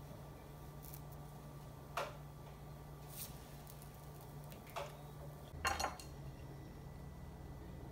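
A spatula scraping and tapping on the nonstick plate of an electric griddle as pancakes are slid off and lifted: a few short scrapes and clicks, the loudest a quick cluster about two-thirds of the way in, over a steady low hum.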